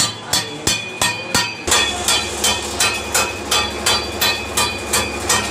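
Hammer striking a steel chisel in a steady rhythm, about three ringing blows a second, chipping key marks into a plastered wall to roughen it for tiling.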